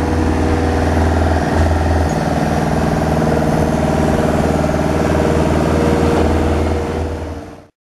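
Engine of a three-wheeled truck-mounted forklift running as it drives and turns, a steady low engine note. The sound fades out quickly near the end.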